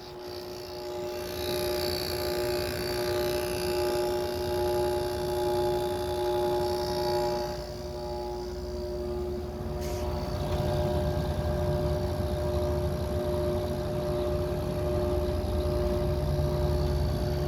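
1989 Carrier window air conditioner running with its compressor and fan on: a steady electric hum with several held tones over the rush of the fan's air. About halfway through the higher airy sound eases and a deeper rumble grows, with a single click about ten seconds in. The owner hears a whirling noise from the compressor that he puts down to compressor mounts needing work.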